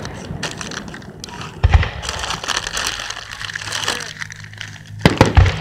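Aerial fireworks going off: a shell bursts with a bang a little under two seconds in, with crackling between, and two more bangs come close together near the end.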